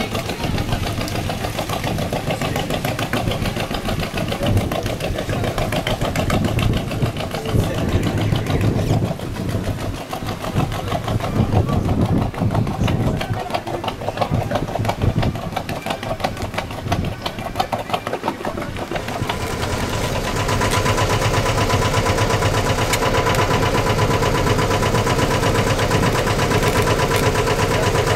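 A small tour boat's engine running with a rapid, even chugging. About two-thirds of the way in it gets louder and steadier, with a humming tone added.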